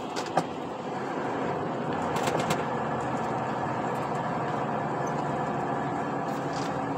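Truck cab while driving: the engine runs steadily under road noise, with a sharp click about half a second in and a few light rattles about two seconds in.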